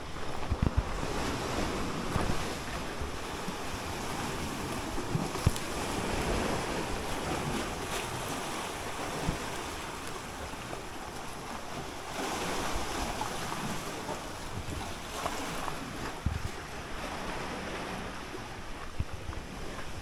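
Sea waves washing against the rocky shore in a steady rush, mixed with wind buffeting the microphone, and a few dull thumps from the handheld walk.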